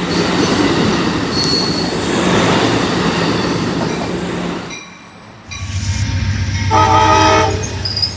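A train rolling past at close range, loud wheels-on-rail rumble and rattle, easing off briefly just before the middle. Near the end the locomotive's horn sounds one short multi-note blast, about a second long, for the crossing.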